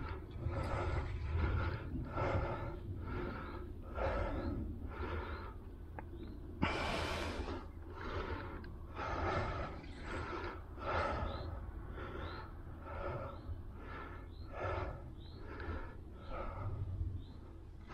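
A person breathing heavily close to the microphone, about one breath a second, with one longer, hissing breath about seven seconds in.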